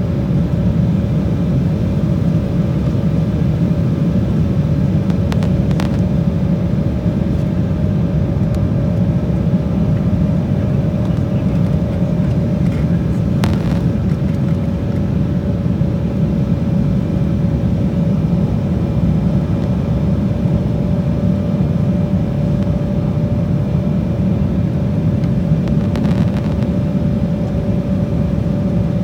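Steady cabin noise inside an Embraer regional jet on approach: a constant low rumble of engines and airflow with a steady hum above it. A few faint clicks sound over it, about six, thirteen and twenty-six seconds in.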